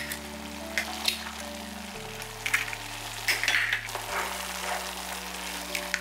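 Tomato sauce with vegetables and sausage bubbling and sizzling in a frying pan, with irregular crackles and pops. An eggshell cracks near the end.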